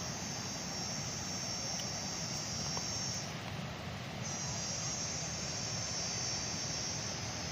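A forest insect, cicada- or cricket-like, calling with a steady high-pitched buzz. It stops for about a second a little past halfway through, then starts again. A steady even hiss runs underneath.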